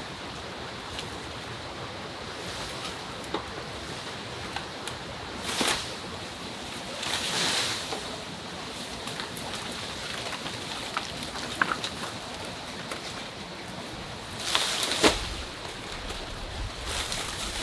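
Rustling and footsteps through dry leaf litter and bamboo undergrowth on a slope, over a steady forest hiss. Louder rustles come about five and a half seconds in, again around seven seconds, and near the end.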